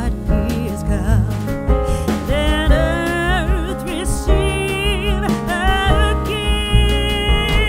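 Background music: a singing voice with vibrato over instrumental accompaniment and a steady bass.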